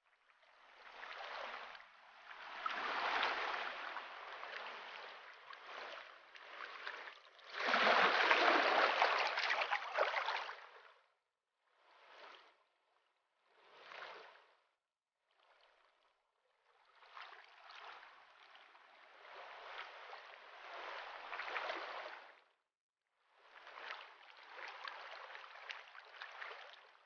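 Tidal water flowing and gurgling in swells a few seconds long, with short silent gaps between, loudest about eight to ten seconds in: the incoming tide flooding a mangrove swamp.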